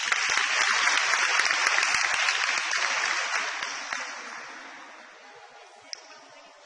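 Applause from a large seated group: many hands clapping at once, dying away gradually over the second half, with one lone sharp clap near the end.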